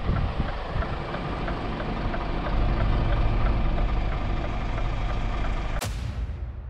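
Scania S500 truck's diesel engine idling with a steady low rumble and a light regular ticking about two or three times a second. Near the end it breaks off with a sharp click and fades away.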